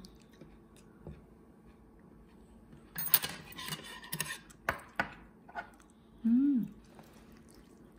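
Metal tongs scraping and clicking against the pan as a piece of chicken is pulled up through melted cheese: a dense run of scrapes and clinks about three seconds in, then two single clicks. Near the end comes a short hummed "mm" from a person.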